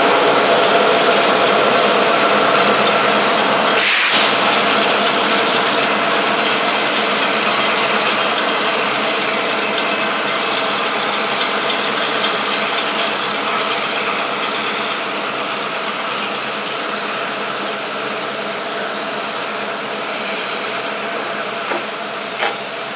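Freight diesel locomotives of a BNSF local running steadily as they move slowly along the track, with a brief burst of hiss about four seconds in and a run of faint, evenly spaced ticks in the middle.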